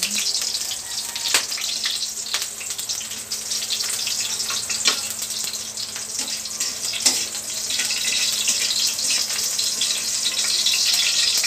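Onion slices sizzling in hot cooking oil in a steel wok, a steady hiss that grows a little louder in the second half. Metal tongs stir and turn the onions, with a few sharp clicks against the pan.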